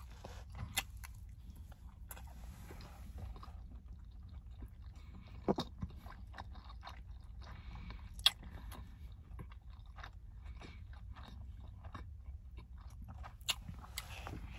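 A person chewing a mouthful of food, with many small irregular mouth clicks and a few sharper clicks spread through.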